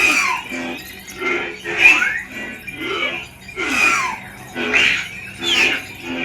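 Sabertrio Reaver lightsaber's CFX sound board playing a soundfont: a steady hum with swing sounds swelling and sweeping in pitch about once a second as the saber is waved.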